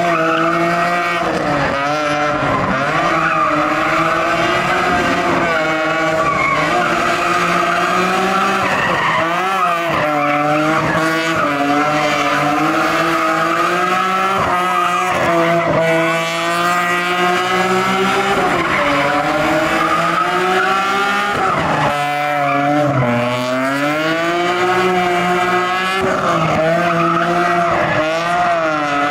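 A rear-wheel-drive BMW drifting in circles: its engine is held high in the revs, the pitch swinging up and down over and over, with the tyres squealing as they spin and slide.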